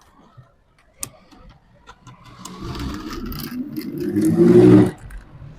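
An electric power-tool motor runs for about three seconds, rising in pitch and getting louder, then stops abruptly, after a couple of sharp clicks.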